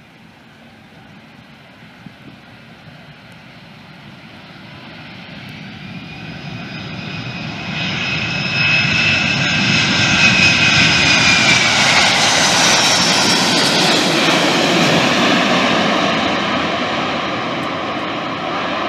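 Boeing C-17 Globemaster III's four turbofan jet engines on landing, growing steadily louder as the aircraft approaches, with a high whine that drops in pitch as it passes. The engines then stay loud through the touchdown and rollout, easing off slightly near the end.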